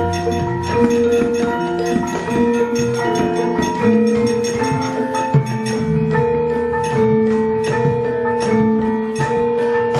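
Javanese gamelan playing: metal-keyed and gong-chime notes ring and overlap in a flowing melody, with occasional sharp knocks.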